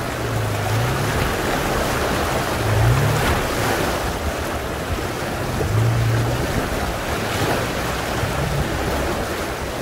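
Toyota FJ Cruiser's V6 engine running low, rising briefly in pitch a few times, under a steady rush of splashing water as the truck wades through a river.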